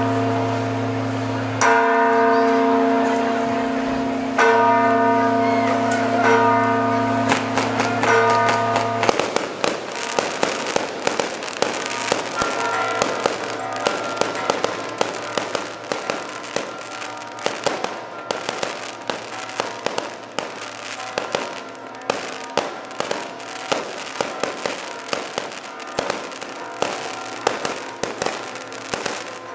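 Church bells ringing, restruck every second or two, for the first nine seconds or so. Then a long, rapid, irregular run of firecracker bangs and crackles from festa fireworks takes over, with the bells still faintly ringing underneath.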